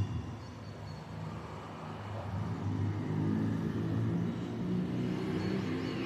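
Low engine rumble of road traffic, growing somewhat louder a couple of seconds in, with a few faint high bird chirps near the start.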